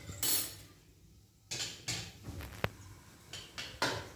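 Bay leaf and cinnamon crackling in hot oil in a pan, with scattered short pops and spits a few times a second and a brief lull about a second in: whole spices being tempered.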